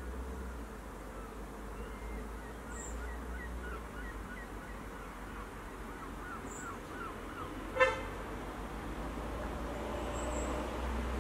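Outdoor background: a steady low rumble with faint, short high chirps, broken about eight seconds in by a single brief, sharp toot.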